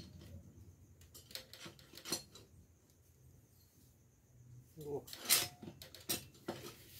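Metal clinks and scrapes of a motorcycle engine's cylinder block being slid up and down over the piston and set down on the crankcase: a scattering of sharp clicks, loudest about five seconds in. The piston binds in the bore, which the mechanic calls badly tight.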